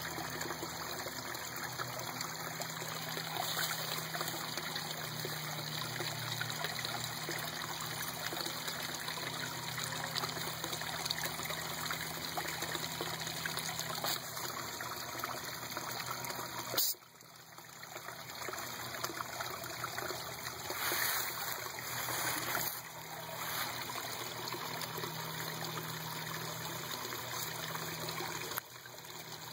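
Water trickling steadily into a small garden pond. A little past halfway a sharp click comes, and the sound drops away briefly before returning, and it dips again shortly before the end.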